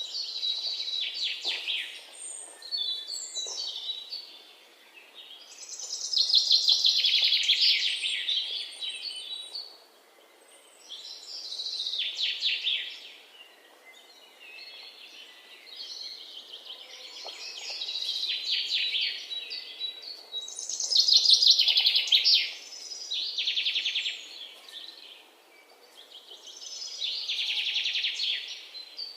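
Budgerigars chirping and warbling in high, rapid phrases of a few seconds each, with brief lulls between them.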